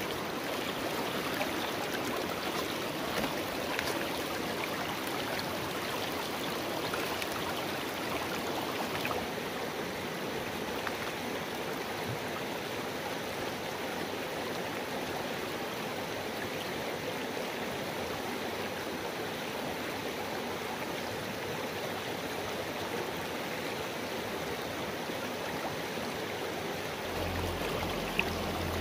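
Shallow rocky stream running steadily, a constant even rush of water over stones.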